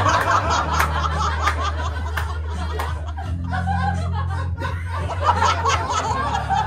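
Audience laughing and chuckling over a backing track, whose steady bass and regular beat keep going underneath.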